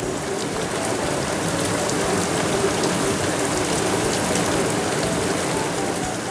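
Steady rain falling: an even hiss sprinkled with many small ticks of drops landing.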